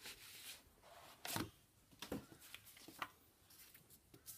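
Quiet rustling and sliding of glossy magazine paper and a loose card being handled, in several short bursts, the loudest about a second and a half in.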